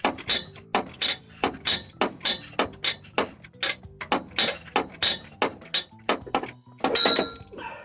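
Socket ratchet clicking in short, quick strokes, about three or four clicks a second, as it turns a starter mounting bolt, with a louder scrape near the end.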